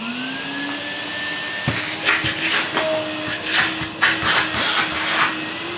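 Numatic Henry Micro vacuum cleaner switched on, its motor spinning up with a rising whine and then running steadily, working again after repair. From about two seconds in, a series of short rushing noises sounds over the motor.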